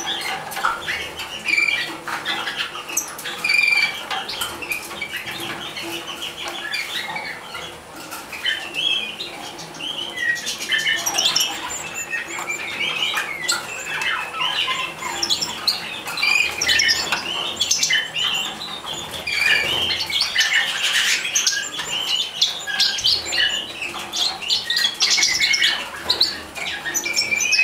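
Dense, high-pitched begging calls of European goldfinch nestlings as the adult goldfinches feed them at the nest, with short clicks and rustles among the calls.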